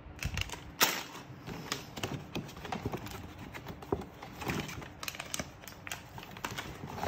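Plastic snack packets and a paper gift bag rustling and crinkling as they are handled, in many short irregular crackles, with one sharp tap about a second in.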